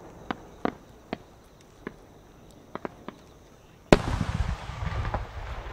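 A 12-inch aerial firework shell rising with small attached effects that give a few scattered pops. About four seconds in comes the single loud bang of the shell bursting, followed by a long rolling echo.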